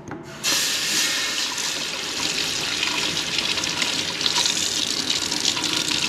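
Kitchen sink tap turned on about half a second in and running steadily, water splashing over the espresso machine's metal shower screen as the burnt-off coffee oil residue is rinsed away.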